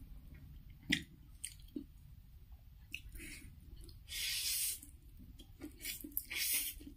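Close-up eating sounds: wet chewing of Wai Wai instant-noodle chowmein, a sharp click about a second in, and two loud slurps as mouthfuls of noodles are sucked in, the first a little after four seconds and the second near the end.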